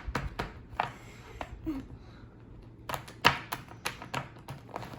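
Irregular small clicks and taps of hands working at a plastic toy and the granular filler it is packed in, with a short lull in the middle and one sharper click just after it.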